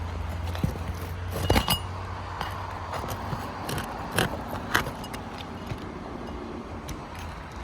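A few sharp metallic clicks and knocks from a roof snake working at nails under asphalt shingles, the loudest about one and a half seconds in, over a low steady rumble.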